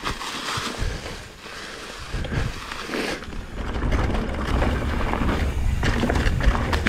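Mountain bike riding over a rocky trail: tyres rolling and the bike rattling and knocking over rocks. Wind buffets the camera microphone, growing louder from about three and a half seconds in.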